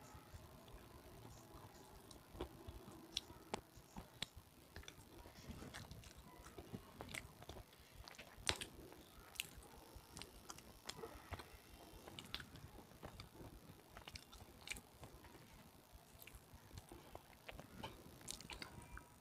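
Close-miked chewing of red sileti: sharp, irregular crunches and crackles as the hard pieces break between the teeth, a few louder snaps among many small ones.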